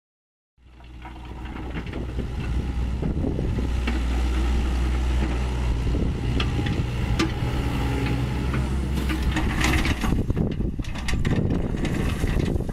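Sany SY75 mini excavator's diesel engine running steadily, fading in about half a second in. From about nine seconds in, crushed stone rattles and grinds as the bucket scrapes and pushes it across the ground.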